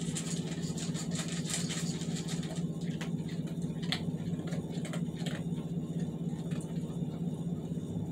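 A dog eating from a bowl, with irregular crunching and licking noises for the first five seconds or so, over a steady low hum.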